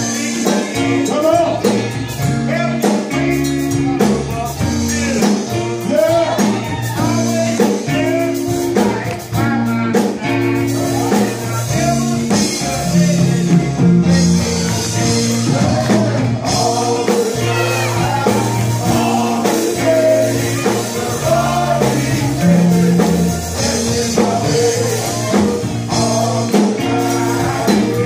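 Male gospel choir singing, accompanied by keyboard and drums, over a steady bass line.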